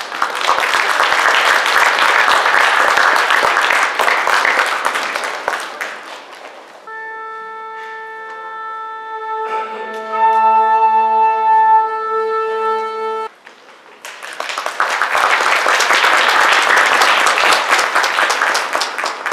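Audience applauding, then the orchestra sounding one long steady tuning note for about six seconds, with a lower octave joining partway through. The note cuts off and the applause starts again, lasting nearly to the end.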